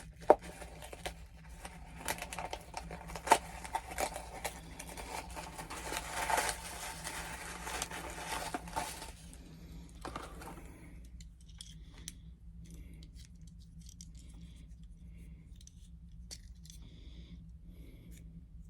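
Toy packaging being opened by hand: tape and cardboard tearing and plastic packaging rustling, with many sharp clicks and snaps. About ten seconds in it dies down to scattered light clicks of handling.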